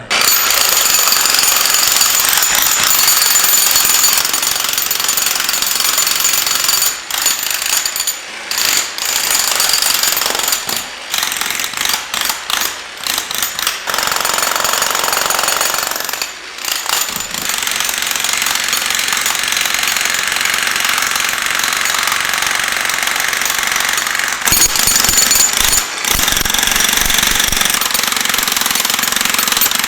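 A 35-pound demolition hammer runs steadily, breaking up concrete into small pieces. It has a few brief pauses along the way.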